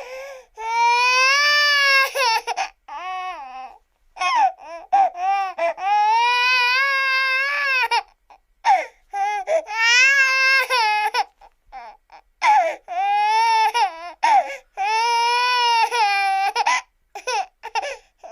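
A cartoon girl's voice crying hard: long, high, wavering wails broken by short gasping sobs.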